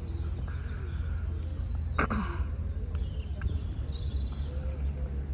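Outdoor park ambience dominated by a steady low rumble of wind on the microphone. There is one sharp click about two seconds in, and faint bird calls later on.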